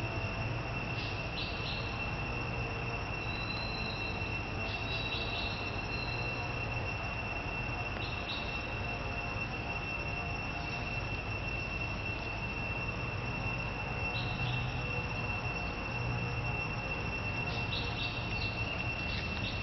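Insects trilling in one continuous, steady high note, with a few short high chirps scattered through it.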